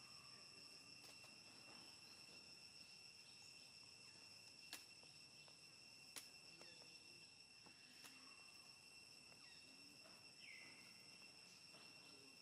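Near silence with a faint, steady high-pitched insect drone at one fixed pitch, and two faint sharp clicks near the middle.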